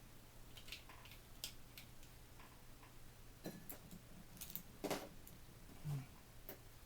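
Scattered light clicks and taps of a small screwdriver on the Skil cordless ratchet's housing as its two T6 Torx screws are taken out, with a louder knock about five seconds in.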